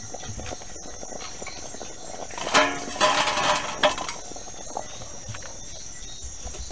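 Crickets chirping steadily. A louder burst of clattering noise comes about two and a half seconds in and lasts about a second and a half.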